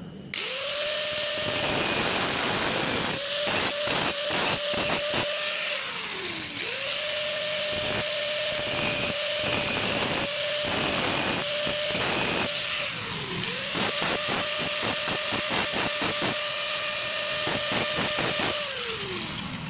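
Handheld electric angle grinder cutting into the threaded end of a small steel bolt held in pliers: a steady high motor whine over a rough grinding rattle. The whine dips in pitch and comes back up about every six seconds, the last time near the end.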